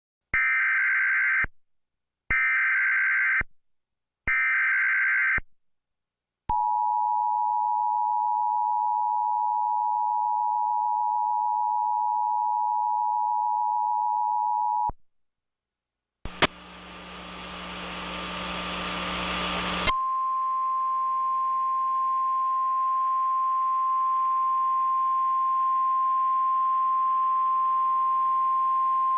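Emergency Alert System tones. First come three short screeching SAME header data bursts. Then the two-tone EAS attention signal holds for about eight seconds and cuts off. After a moment of quiet, static hiss starts, and a single steady high alert tone joins it partway through and holds over the hiss.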